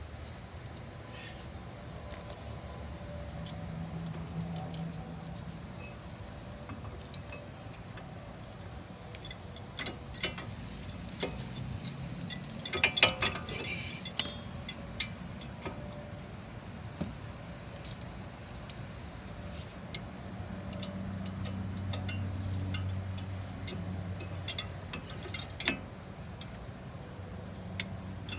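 Scattered metallic clicks and clinks of tools and brake caliper hardware being handled, with a short burst of clatter about halfway through, over a low background hum.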